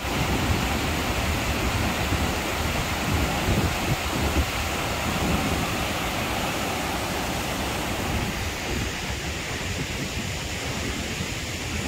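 Muddy floodwater cascading down a rock waterfall in a gorge: a steady rushing noise with gusts of wind on the microphone. Near the end it thins slightly, where a flash-flood stream runs through a stony wadi.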